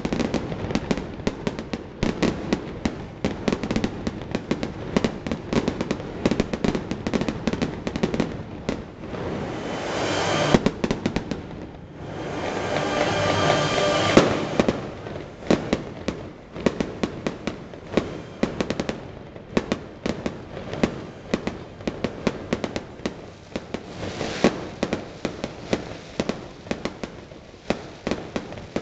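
Aerial fireworks display going off in quick succession: a dense run of sharp bangs and pops, with swells of loud crackling hiss about ten and thirteen seconds in and again near the end.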